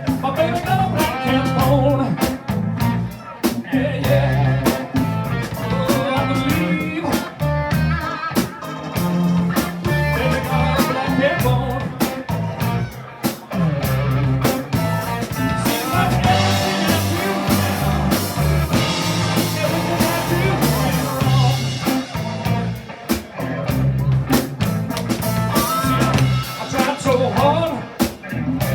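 Blues band playing, with electric guitar, bass, keyboards and drums.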